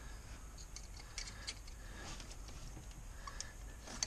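Faint scattered clicks and light rattles of plastic wiring-harness connectors and wires being worked loose by hand in an engine bay, with a sharper click near the end.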